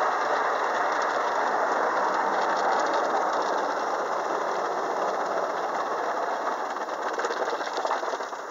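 Automatic car wash working over the car, heard from inside the cabin: a steady rushing of water and wash equipment against the body and windows, with faint rattling, slowly fading.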